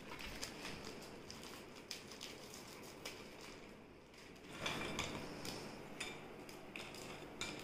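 Faint handling noises: a plastic biscuit packet rustling and light clicks as chocolate biscuits are handled and broken over a glass bowl.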